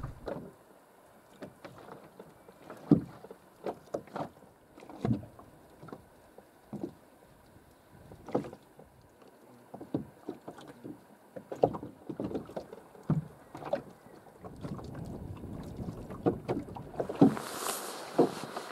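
Water lapping against the hull of an anchored small boat: irregular soft slaps and knocks, roughly a second apart, with a broader rush of noise swelling near the end.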